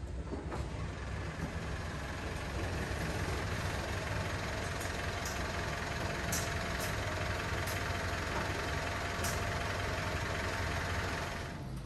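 A vehicle's engine running steadily, with a deep even rumble that starts suddenly and fades out near the end.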